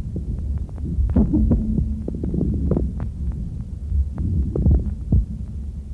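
Stethoscope recording of lung sounds: breathing heard as a low rumble, with many short crackling clicks over it. These are fine-bubbling moist rales (fine crackles), which are heard on both the in-breath and the out-breath.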